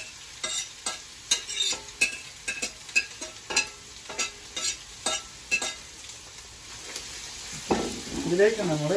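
A steel spoon scraping and tapping sliced onions off a plate into a pan of hot oil, a quick irregular series of sharp clicks over a steady sizzle as the onions start to fry. The clicks stop near the end, leaving the frying sizzle.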